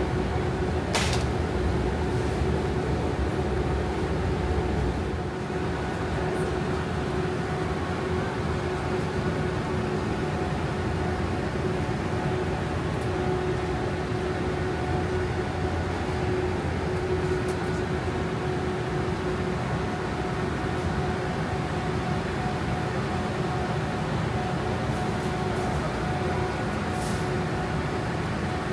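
Steady supermarket ambience: a constant machine hum with two steady pitched tones running through it, and a brief sharp click about a second in and again near the end.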